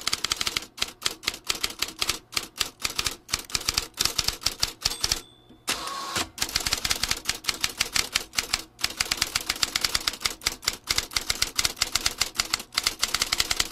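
Fast typing on a computer keyboard: a rapid, uneven patter of keystroke clicks that stops briefly about five seconds in, then carries on.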